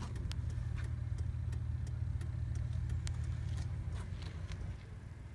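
A 2001 Chevy Silverado 1500's 5.3L V8 idling, with the left turn-signal flasher clicking in an even rhythm while the new tow mirrors' signal lights are tested. The engine hum drops away near the end.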